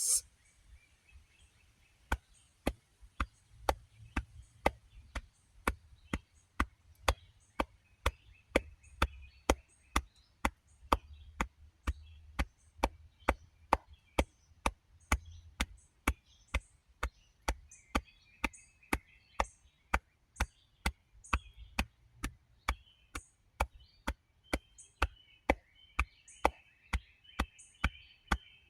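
Sharp, evenly spaced ticks, about two a second, starting about two seconds in, over a faint low hum. A short hiss comes right at the start.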